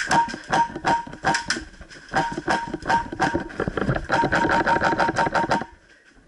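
PolarStar HPA-powered airsoft F2000 firing a long, rapid string of semi-automatic shots. Each shot is a sharp crack with a short ringing ping. The shots come faster in the second half and stop abruptly near the end.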